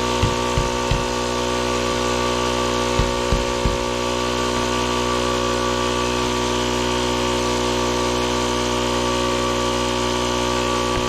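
Air compressor running steadily, inflating a spare tire freshly filled with tire sealant. A few short low thumps come in the first second and again around three seconds in.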